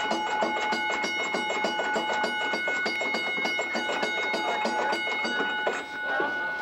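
A bell ringing continuously, its clapper striking rapidly over several steady ringing tones. The lowest tone drops out partway through and the ringing stops near the end.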